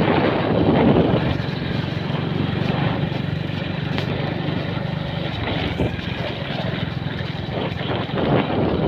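Small motorcycle engine running at a steady riding speed, with wind rushing over the microphone.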